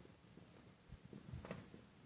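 Near silence with a few faint, low fireworks booms from far off, about a second in, during a fireworks finale.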